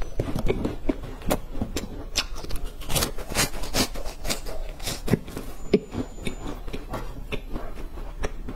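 Close-miked crunching and chewing of crisp chocolate sticks: many sharp, irregular crunches and crackles as they are bitten and chewed.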